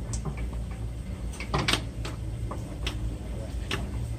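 Irregular metal knocks and clunks as a new right front CV axle is pushed and worked into the transmission of a Kia Rio/Forte, with several in a row, the loudest a little under two seconds in, over a steady low hum.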